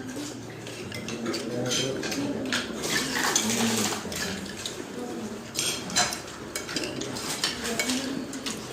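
Cutlery clinking and scraping against plates and dishes during a meal, in many short, irregular clinks, with a low, indistinct murmur of voices underneath.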